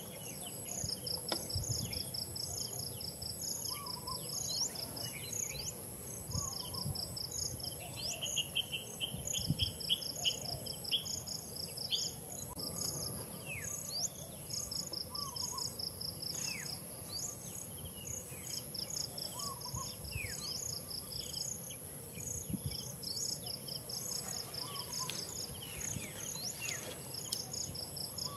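Forest insects calling: a steady high-pitched drone with rhythmic, rapidly pulsed chirping that comes in repeated bouts. Short, downward-sliding bird calls sound here and there over it.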